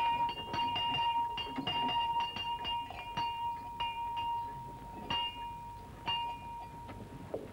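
A large hanging belfry bell clanging in fast, uneven strokes, its ringing tone carrying between them. The strokes slow to about one a second near the end, and the ringing fades just before the end.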